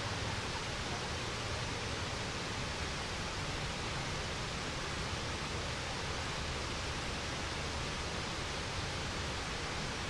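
Waterfall: a steady, unbroken rush of falling water with no separate splashes.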